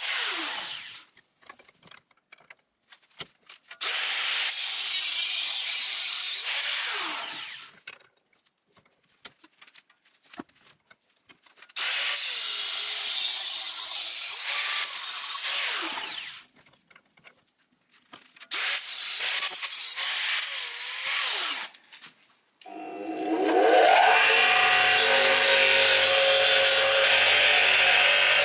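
A power tool working a piece of steel plate in runs of a few seconds, the motor winding down at the end of each run, with near-silent pauses between. About 23 s in, a louder machine spins up and runs steadily.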